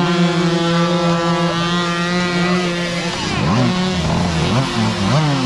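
Several small youth dirt bike engines running hard: one holds a steady high-revving note, then from about three seconds in several engines rev up and down over one another as the bikes fight for grip on a loose dirt hill climb.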